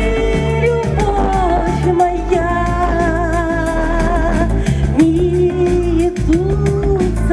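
A woman singing a pop song over a backing track: long held notes with strong vibrato above a steady bass line.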